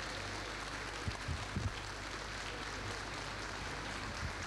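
Steady hiss of background noise with faint crowd murmur, and a few soft low thumps between one and two seconds in.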